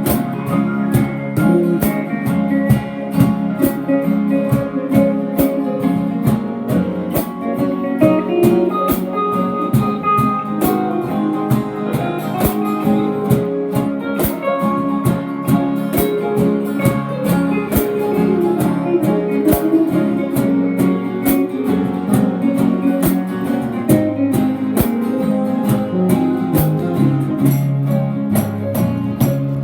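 Instrumental break of a country-folk song on acoustic guitar: steady strummed chords with a picked melody line over them, no singing.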